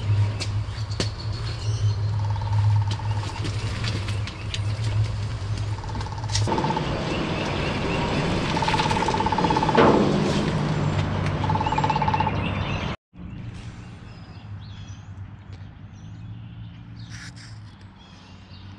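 A vehicle engine running steadily with a low hum, with birds chirping. The sound breaks off abruptly about two-thirds of the way through and carries on quieter.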